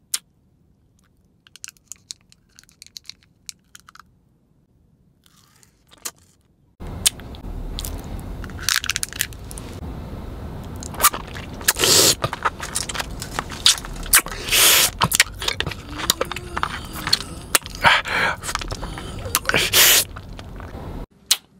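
A plastic candy wrapper crinkling faintly in short ticks, then, about a third of the way in, a hard candy ball being bitten and crunched between the teeth. The crunches are close-miked and loud, coming every second or so over a low steady rumble.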